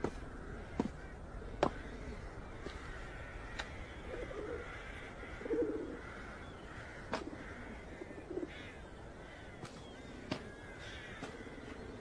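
Crows cawing a few times over a faint, steady hush, with several brief sharp clicks in between.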